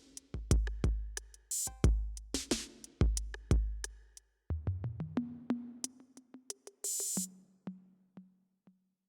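Yamaha PSR-SX900 arranger keyboard playing drum-machine percussion: deep kick drums with long low tails mixed with sharp snare-like hits, then a quicker run of pitched tom-like hits, a short burst of hiss about seven seconds in, and a few last hits dying away.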